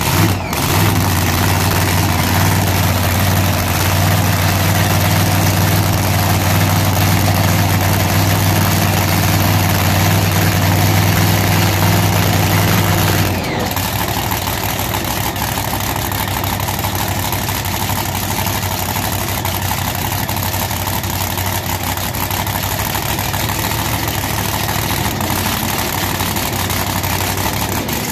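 Outlaw 10.5 drag car's engine running steadily on stands. About halfway through it steps down suddenly to a quieter, steady idle.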